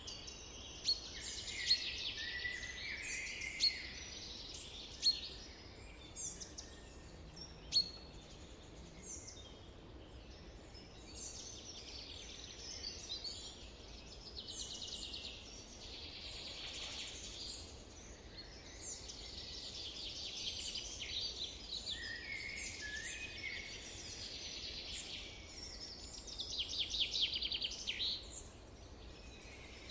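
Summer forest ambience: a chorus of several birds singing at once, with overlapping high chirps and trills over a faint background hiss. A few sharp loud chips stand out in the first eight seconds, and a rapid trill swells near the end.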